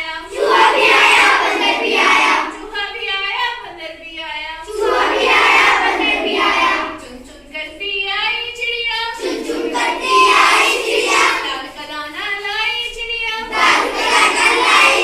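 Children singing a Hindi nursery rhyme in chorus, each loud group line alternating with a single voice singing the line alone.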